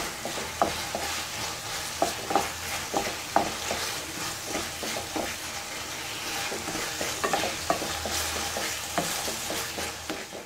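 Mutton in a thick onion-tomato masala sizzling on high flame in a nonstick kadai while a wooden spatula stirs it, with frequent short knocks and scrapes of the spatula against the pan. The masala is being fried hard until the tomatoes break down.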